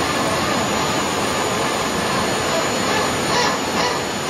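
Hydraulic pumps running with a loud, steady hum while the Airbus A320's landing gear extends during a gear swing test. A few short, high squeaks come near the end.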